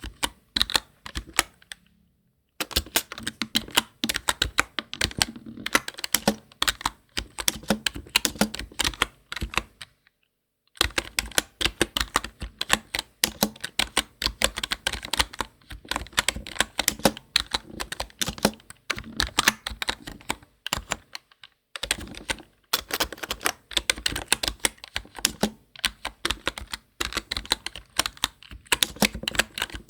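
Fast typing on a close-miked computer keyboard, a dense run of key clicks with occasional heavier strokes, cutting to silence three times for under a second.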